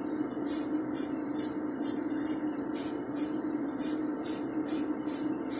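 Spray paint going on in quick short bursts of hiss, about two a second with a brief pause in the middle, over a steady low hum.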